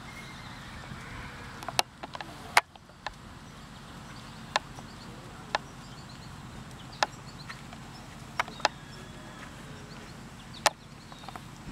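Scattered sharp clicks at irregular spacing, about one every second or two, over a steady low hum.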